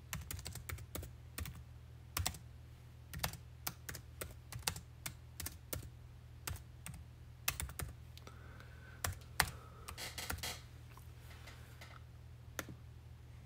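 Typing on a computer keyboard: irregular runs of key clicks that thin out over the last few seconds, over a low steady electrical hum.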